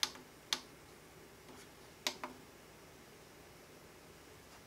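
Front-panel push-buttons on an Elecraft KPA1500 amplifier clicking as they are pressed to step into its setup menu: about four sharp clicks in the first two and a half seconds, in two close pairs.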